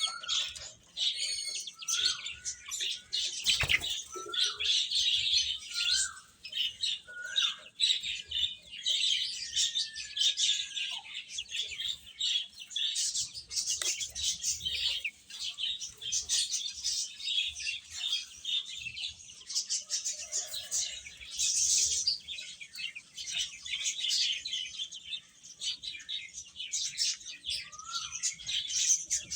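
Many baby chicks peeping continuously in a dense, high-pitched chorus, with a few short, lower calls near the start and again near the end.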